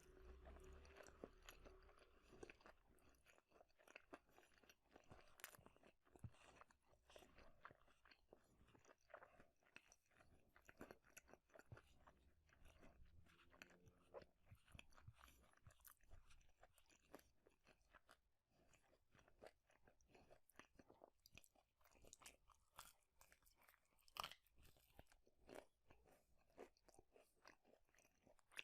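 Quiet chewing and crunching of food in the mouth: many irregular wet clicks and crackles.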